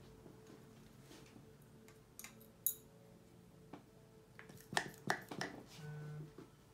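Hand-held pistol suction pump squeezed on the valve of a plastic cupping cup, drawing the vacuum: faint scattered clicks and plastic clatter, most of them in a quick cluster a little past the middle. A brief low hum sounds near the end.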